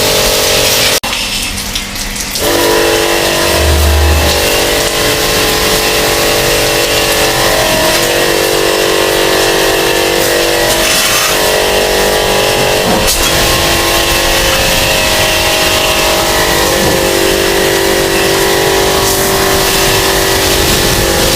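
Pressure washer running steadily, its motor humming under the hiss of the water jet, with a short drop about a second in.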